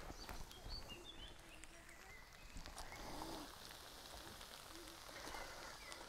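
Faint outdoor ambience with birds chirping and a few light knocks.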